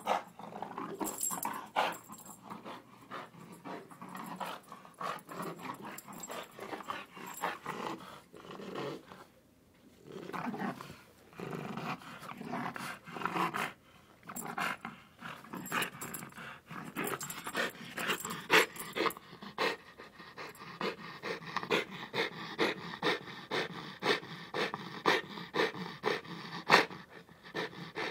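French bulldog growling and grumbling in a Chewbacca-like way, mixed with panting. The sound comes in uneven pulses at first, then in the second half settles into a steady rhythm of about one and a half pulses a second.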